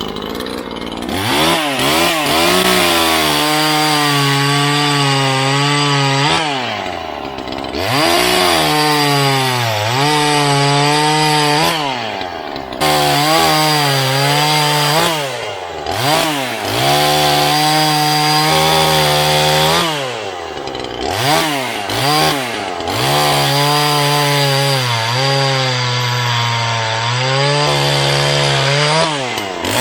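Neotec NH843 43cc two-stroke chainsaw (a Husqvarna 5-series clone) running hard, revved up and held at high speed for a few seconds at a time, then dropped back and revved again, about seven times over.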